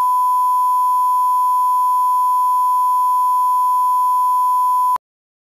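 Steady 1 kHz bars-and-tone reference tone: a pure, unwavering beep used as a broadcast audio line-up signal. It cuts off abruptly about five seconds in.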